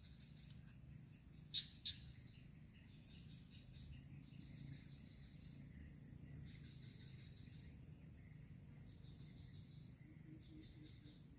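Faint insect chorus, crickets or cicadas, with a steady high buzz and bouts of chirping that start and stop every second or two. Two sharp clicks come close together about two seconds in.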